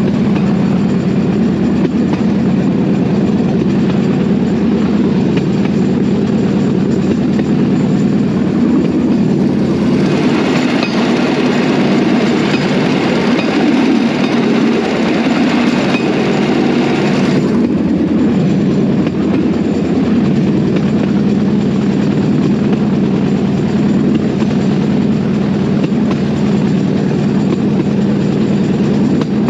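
Bamboo train (norry) running along the rails, its small petrol engine droning steadily while the platform rattles over the track. A louder hiss joins for about seven seconds midway.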